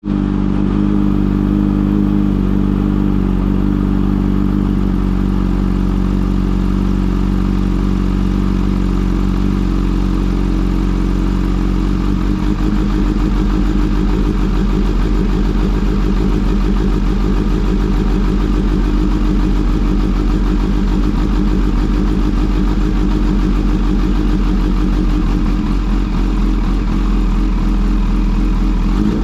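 Kawasaki Z H2 SE's supercharged inline-four engine running steadily at an even engine speed.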